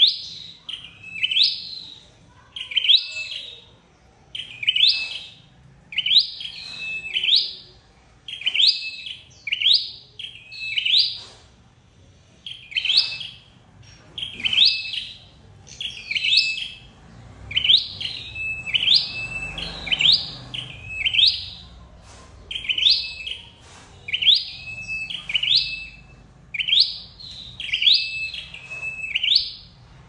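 Caged sâu đầu đỏ songbird calling over and over, a loud, sharp hooked note about once a second, sometimes doubled: the bird's decoy call used to lure wild birds to a trap.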